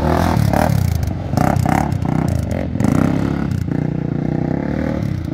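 Sport ATV's single-cylinder engine revving, its pitch rising and falling, with short clattering knocks in the middle.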